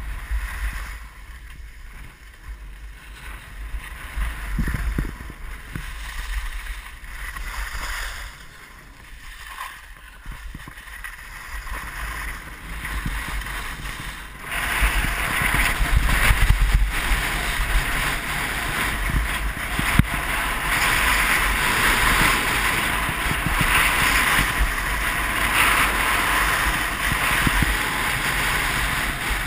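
Skis hissing and scraping over packed snow, with wind rumbling on the microphone of a body-worn camera. About halfway through, the ski hiss becomes louder and steadier and holds.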